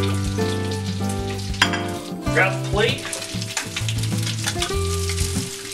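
Trout fillets sizzling in hot oil in a frying pan while a spatula scrapes under them and lifts them out, over background music.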